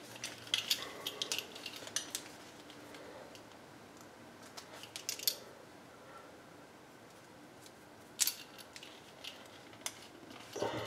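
Faint, scattered metallic clicks and clinks in small clusters as a crocodile-leather Hermès Collier de Chien bracelet is buckled on a wrist and its metal hardware is handled.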